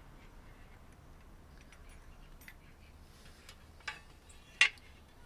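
Small clicks and taps of metal parts being handled while a motorcycle's front fender is unbolted from the fork, with a sharp click a little under four seconds in and a louder sharp click about half a second later.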